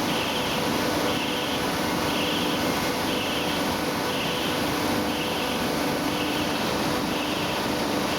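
Machinery of a polyester staple fiber production line running steadily: a dense mechanical noise with a faint steady tone, and a short higher-pitched pulse repeating just over once a second.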